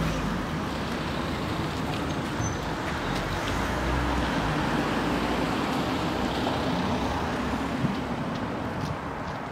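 Road traffic running past: the engine and tyre noise of a passing vehicle swells to its loudest about midway, then fades.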